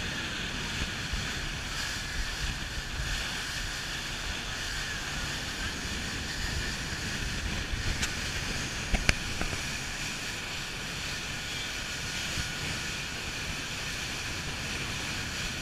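Steady rush of wind on the microphone and water streaming off the hull of a motor yacht running at speed on open sea, over a low rumble. A few sharp clicks come about eight to nine seconds in.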